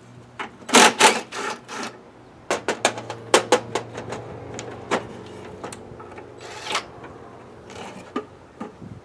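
Cordless power driver run in short bursts to back out fasteners, with clicks and clanks of metal parts between the bursts. There are several loud bursts in the first two seconds, then a quick string of clicks and shorter runs, and another burst or two near the end.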